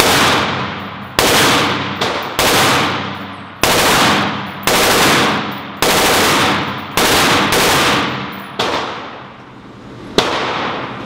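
Steyr AUG rifle fired shot by shot, roughly one a second, each sharp report trailing off in a long echo off the walls of an indoor range. There are about ten shots, with a short pause before the last one near the end.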